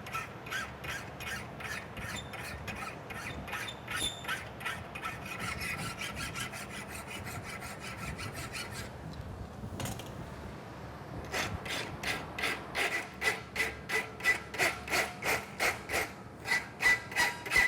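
Hammer blows on a steel horseshoe against the anvil, struck in a fast steady rhythm of about three a second, the steel ringing with each blow. The hammering stops for a moment about nine seconds in, then resumes louder. A steady low fan hum runs underneath.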